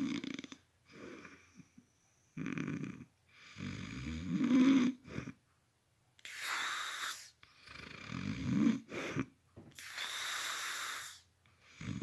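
A sleeping man snoring loudly: several low snores on the in-breath, each swelling to a loud peak, alternating with breathy, hissing exhales, with short pauses between breaths.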